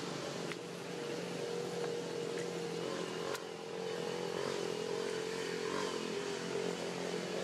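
A small engine running steadily, its hum wavering slightly in pitch.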